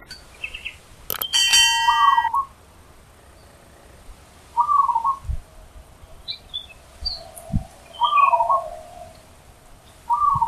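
Zebra dove (perkutut) cooing: a short phrase of quick notes, four times about three seconds apart. A bright ringing chime sounds over the first phrase, about a second in.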